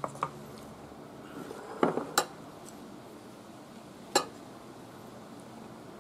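Wooden chopsticks clicking against dishes while eating: two light taps at the start, a louder pair of clinks about two seconds in, and one more a little after four seconds.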